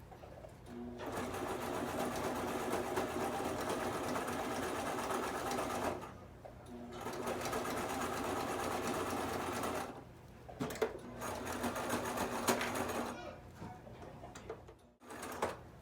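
Brother domestic sewing machine stitching hair wefts onto a wig cap. It runs in three bursts of a few seconds with short pauses between, then stops near the end, leaving a few light clicks.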